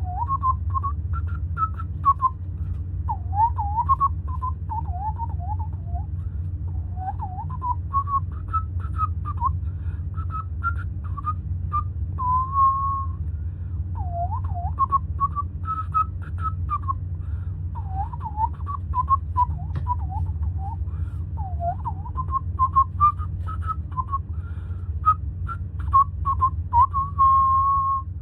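A person whistling a tune, with swooping notes and a few longer held ones, over a steady low hum and scattered light clicks and knocks.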